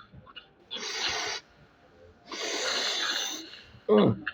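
A person's breathy, unvoiced exhalations, two long hissing breaths close to the microphone, followed near the end by a short voiced sound.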